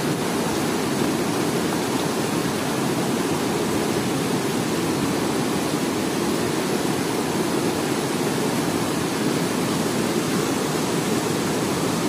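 A fast, strong-running mountain river rushing over boulders in whitewater, making a steady, unbroken rush of water.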